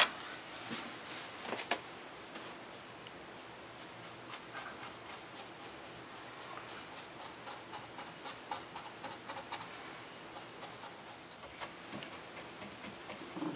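Large round paintbrush dabbed again and again against a fascia board in short punching strokes, stippling on wet paint: a faint, irregular patter of soft taps, with a couple of sharper clicks in the first two seconds.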